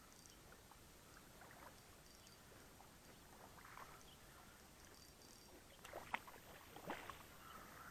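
Near silence with faint small water sounds, then a few sharp splashes about six and seven seconds in as a small hooked trout thrashes at the surface.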